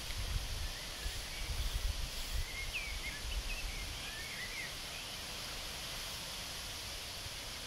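Wind buffeting the microphone outdoors, gusting in the first few seconds and then settling to a steady rush, with a few faint bird chirps in the middle.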